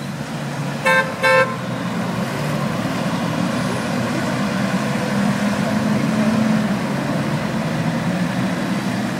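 A car horn gives two short toots about a second in, over a steady low hum of engines and traffic.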